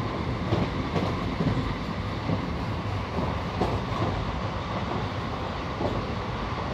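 Moving train running on the rails: a steady rumble with irregular clacks of the wheels over the rail joints.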